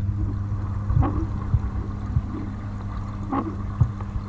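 Steady low hum and bubbling of the tank's air pump, with a couple of brief watery gurgles about a second in and again near the end as a hand dips the fly into the water.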